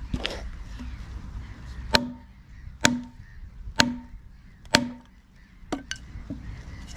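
A hammer driving wooden wedges into a split along a log to rive it apart. Four hard knocks come about a second apart, each with a short dull ring, then a few lighter knocks near the end.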